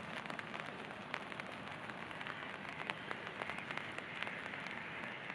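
Steady rain falling, a constant hiss with many individual drops striking sharply close to the microphone.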